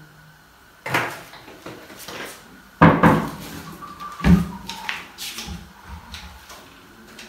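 Kitchen wall-cabinet doors being opened and shut: three sharp knocks about a second, three seconds and four seconds in, with lighter clicks and clatter between.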